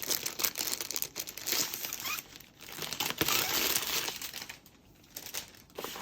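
Plastic wrapping crinkling as it is handled and pulled off, in two long stretches of rustling that die down near the end.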